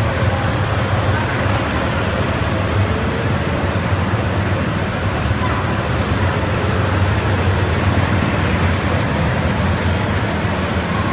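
Several go-karts running laps around an indoor track, a steady mix of kart engine noise with a strong low hum inside the enclosed concrete hall.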